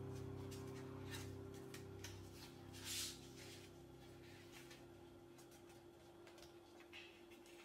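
Faint rustling and creasing of a sheet of A4 paper being folded into a paper airplane, with a louder crinkle about three seconds in, over a low held note of fading background music.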